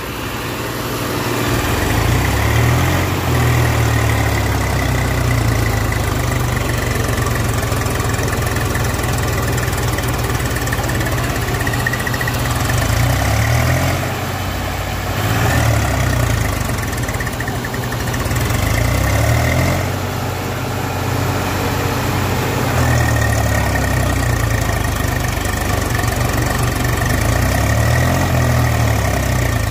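Diesel engines of two tractors, a Swaraj 744 FE stuck in slippery clay mud and a Mahindra 265 DI pulling it on a tow line, running hard under load and revving up and easing off several times as they try to haul it free.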